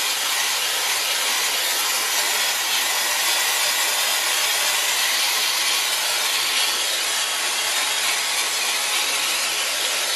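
Vacuum cleaner running steadily, its nozzle worked over a heat-pump air filter to suck out the dust, with a rubbing scratch as it moves over the mesh.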